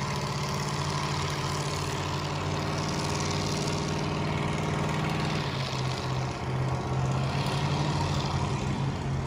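An old convertible sedan's engine held at high revs during a burnout, its rear tires spinning on the pavement and smoking. The engine note stays steady, then drops a little about halfway through.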